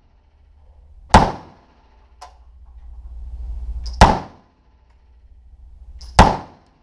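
Three single shots from a Colt 9mm AR-pattern carbine fired one at a time, each a sharp crack with a short ring-out in the range booth. The shots come about three seconds and then two seconds apart.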